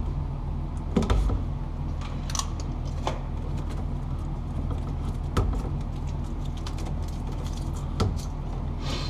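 Scattered clicks, taps and light rattles of hands working electrical cable and tools while the cable sheathing is stripped back, over a steady low hum.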